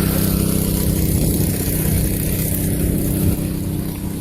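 A vehicle engine running steadily, a low hum under a constant hiss.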